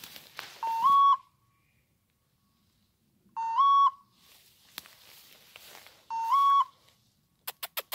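Electronic beeper collar on a hunting dog sounding a short two-step rising beep three times, about every three seconds. Between the beeps, dry grass and brush rustle, and near the end there is a quick run of sharp clicks.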